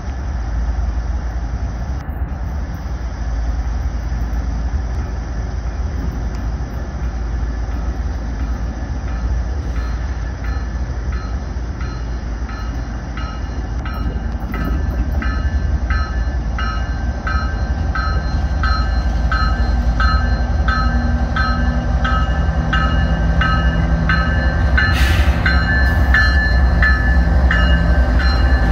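BNSF diesel locomotive approaching and passing close by, its engine rumbling deep and growing louder as it nears. From about nine seconds in, its bell rings about once a second, and a short hiss comes near the end as the locomotive draws level.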